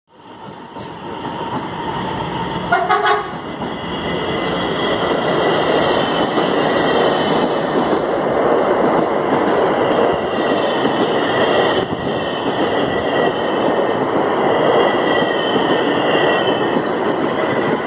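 A CSR electric multiple unit passing close along a platform: a steady rush of wheels on rails with a high whine over it, swelling in over the first two seconds. A brief buzzing tone comes about three seconds in.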